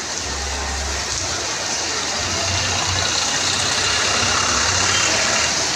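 Road traffic on a wet street: engines running low with a steady hiss of tyres on wet tarmac, growing louder as a small goods truck drives close past.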